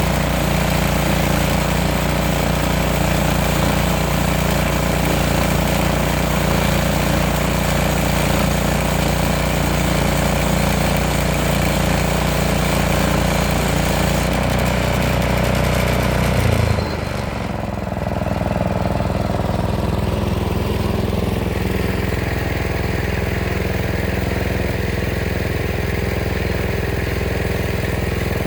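Sawmill engine running steadily under load while the saw cuts through hardwood, with a hissing cutting noise on top. About 17 seconds in the cut ends: the hissing drops away and the engine runs on more quietly.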